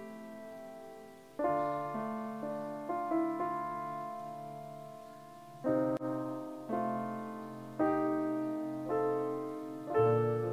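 Slow, soft piano chords played on a stage keyboard, each struck and left to fade, a new chord every second or two over held bass notes.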